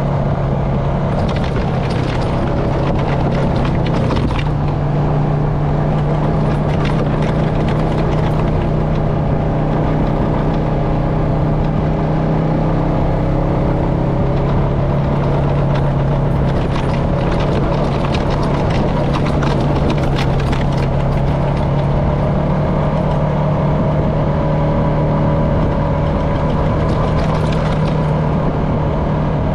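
Honda FourTrax Foreman ATV's single-cylinder four-stroke engine running steadily at trail speed on sandy dirt. The engine note steps up a little about four seconds in and eases back around the middle, with a rushing hiss that comes and goes over it.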